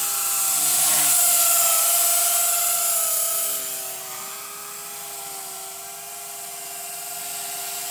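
Blade 130X electric RC helicopter flying alongside a second RC helicopter, their motors and spinning rotors whining in several steady tones that waver slightly in pitch. The sound is loudest over the first three seconds, then drops about half-way through.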